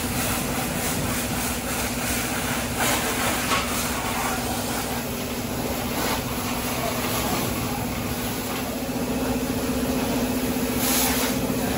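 Car wash machinery running steadily: a motor hum under a constant hiss, with a few brief louder hissing spurts.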